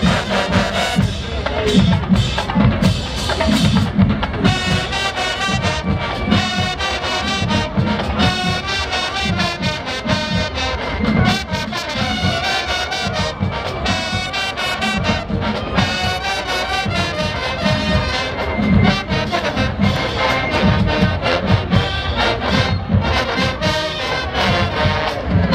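Marching band playing: a brass section of trumpets and sousaphones over a drumline of bass and snare drums, with a steady pounding beat.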